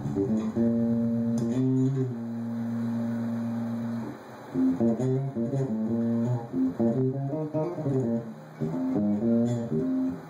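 Electric bass guitar played through a 12-inch bass cabinet fitted with a new RCF 12G301 ceramic-magnet woofer, demonstrating its tone. A few plucked notes, one note held for about two seconds, then a run of shorter notes with brief pauses.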